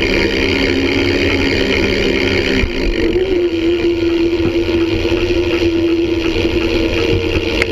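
Wheels rolling fast over smooth concrete, a steady rumble with a humming tone that shifts slightly about three seconds in, with wind buffeting the microphone.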